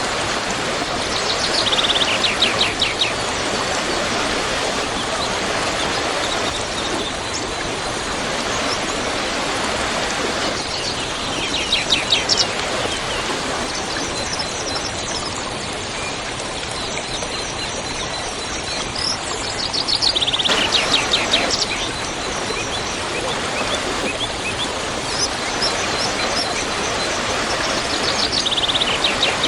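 Waterfall rushing steadily. A bird sings a short, fast trill that falls in pitch four times, about every nine seconds.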